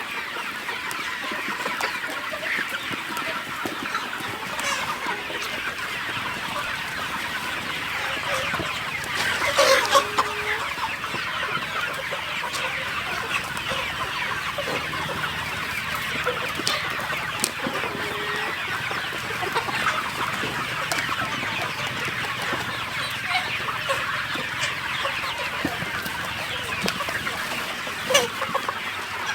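A flock of chickens clucking, many birds calling over one another without pause, with a louder call about ten seconds in and another near the end.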